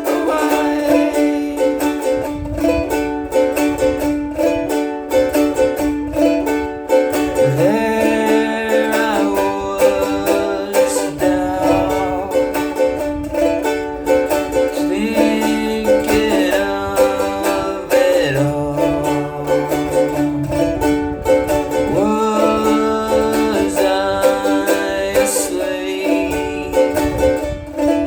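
Music from a plucked string instrument playing a repeating tune, with a singing voice coming in now and then.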